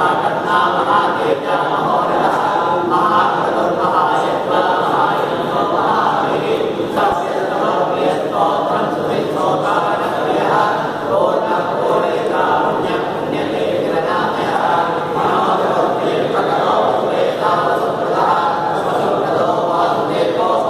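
A group of Hindu priests chanting mantras together in unison, a steady, unbroken group recitation of many men's voices.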